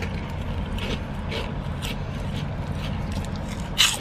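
Chewing and crunching of airy cinnamon snacks, with a paper bag rustling as a hand reaches in and a louder crackle near the end. A steady low rumble of the car runs underneath.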